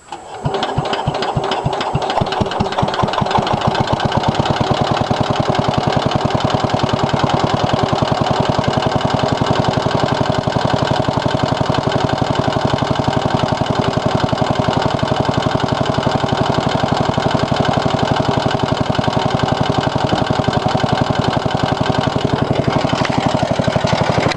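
1963 Cub Cadet Original's single-cylinder Kohler engine starting up about half a second in, then running steadily with a heavy rhythmic knock. The owner found metal flakes in the oil and takes the knock as a sign that the engine needs a rebuild.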